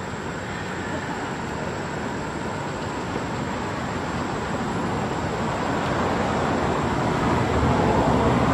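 Steady rushing rumble of a motor vehicle on the road, growing louder toward the end as it comes closer.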